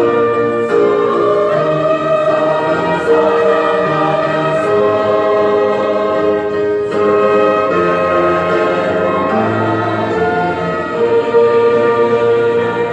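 Choir singing a hymn in slow, held chords, the notes changing about once a second.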